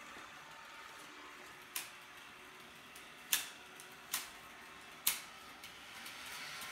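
HO-scale model freight train running around the track with a steady whir, broken by four sharp, uneven clicks.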